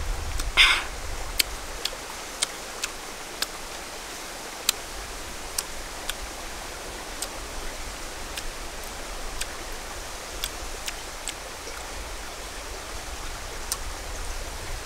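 Steady rush of a stream, with scattered sharp clicks and snaps as langsat fruit are peeled by hand and eaten, and a louder short crackle about half a second in.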